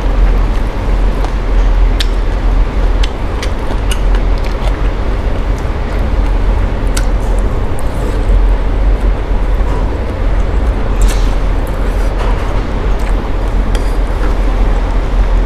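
Steady low rumbling background noise with scattered short clicks, typical of eating utensils knocking against a bowl.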